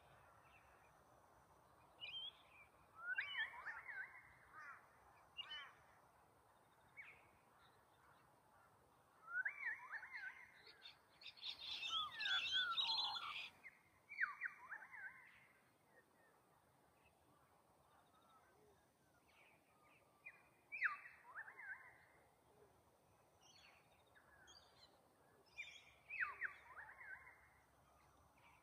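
Wild birds calling: short runs of quick falling notes every few seconds, with a busier stretch of several overlapping calls about halfway through.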